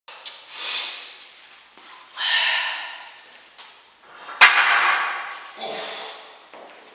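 A lifter's forceful breaths, heard as several short hissing exhales. About four and a half seconds in comes one sharp metallic clack as the Smith machine bar is turned off its safety hooks.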